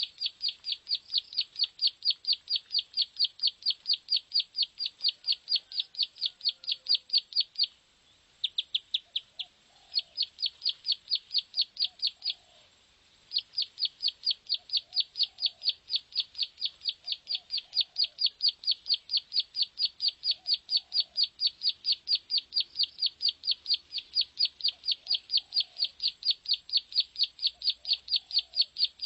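Plain prinia (prenjak sawah) song played as a lure call: a fast, even run of short, high, buzzy notes, about six a second, with two brief breaks about a third and halfway through. Faint lower calls sound now and then behind it.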